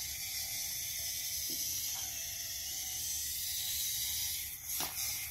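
Small DC gearmotor driving a 3D-printed rover wheel, running steadily with a hissing whine as the cleated wheel climbs onto stacked silicone blocks. It dies away near the end, followed by a couple of light ticks.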